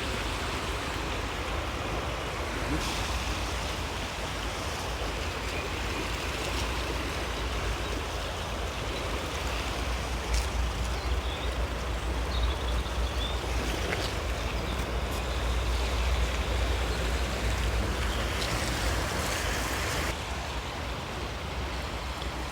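Floodwater rushing through a swollen canal: a steady, even rush of water, with a low rumble underneath.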